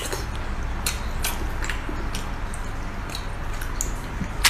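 Small wet squishes and scattered clicks of fingers tearing apart and handling cooked sea snail meat, over a steady low background hum; a sharper click near the end.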